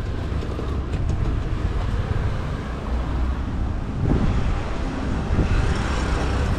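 City street traffic: a steady low rumble of road noise, swelling about four seconds in as a vehicle passes close by, then easing off.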